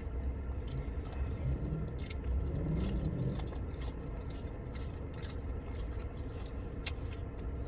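Close-up chewing of food: soft wet mouth sounds and small clicks over a steady low rumble, with a brief closed-mouth hum about three seconds in and one sharp click near the end.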